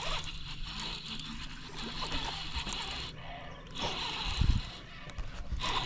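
Baitcasting reel being cranked to bring in a hooked fish, a steady mechanical whir of the reel gears. A louder rushing burst of noise comes about four seconds in.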